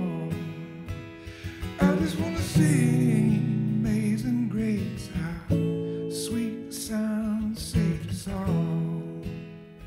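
Acoustic guitar strummed slowly under a man singing a worship song.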